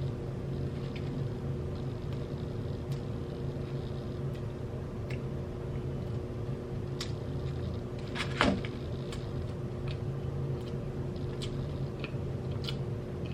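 Scattered small clicks and crackles of food being handled and eaten, with one louder crackle about eight seconds in, over a steady low hum.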